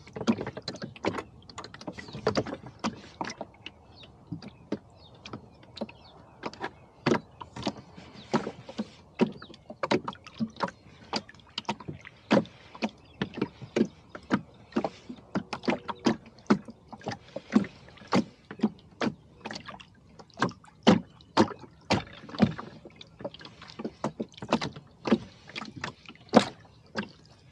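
A small rowboat sitting on wind-driven chop: water lapping and slapping against the hull in an irregular run of sharp knocks, several a second at times.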